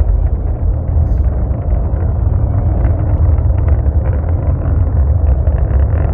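Antares rocket's first-stage engines heard from a distance during ascent: a steady, deep rumble with a ragged crackle over it.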